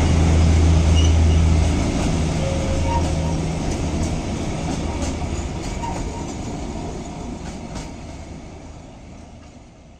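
O scale model train running on the layout's track: a low steady hum with faint clicks. It fades away gradually as the train pulls off into the tunnel.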